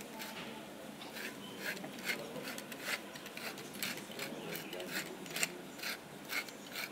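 Wooden pepper mill grinding black peppercorns: a run of irregular, scratchy clicks from the turning grinder.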